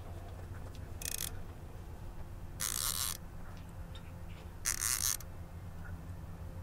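A fishing reel zipping in three short bursts, about a second in, near three seconds and near five seconds, as the angler pulls against a catfish snagged under a log, over a steady low hum.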